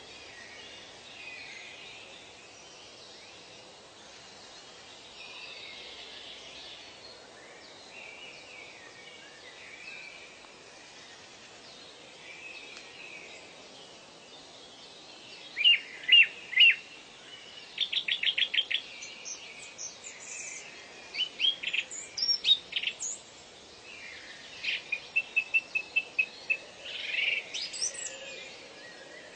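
Wild birds calling. For the first half there is only a faint haze of distant bird chatter. From about halfway, a nearer bird gives loud, sharp, high notes in quick repeated runs and short trills.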